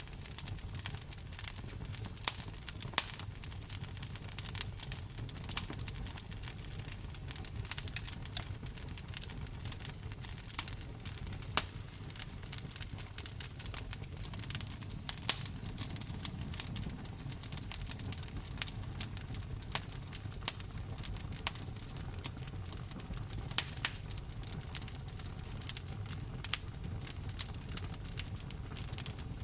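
Wood fire in a fireplace crackling, with sharp irregular pops and snaps over a steady low rumble of burning logs.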